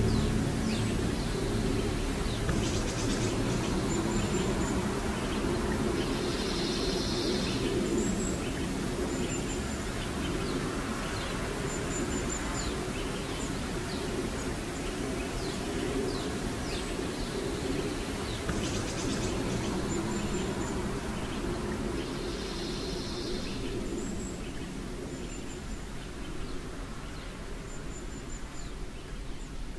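Looped outdoor ambience: short high chirps and buzzes over a steady low hum. The same sequence repeats about every sixteen seconds and slowly fades toward the end.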